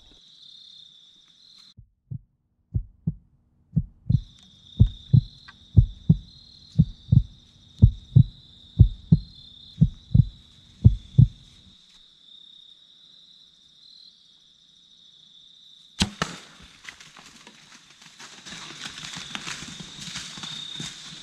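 Heartbeat sound effect, low thuds about three a second, over crickets chirping. About sixteen seconds in, a single sharp snap as the compound bow is shot, followed by a growing noisy rustle.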